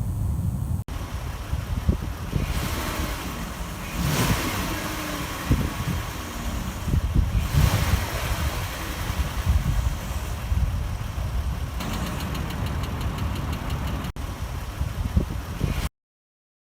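Chrysler 3.6L Pentastar V6 engine running in several spliced-together clips. Late in the stretch a fast, even ticking rides on top, the kind of tick that the owner traced to failing roller rocker arms.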